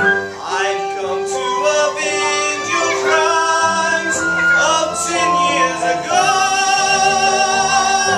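Live musical-theatre singing over instrumental accompaniment, ending on a long held note.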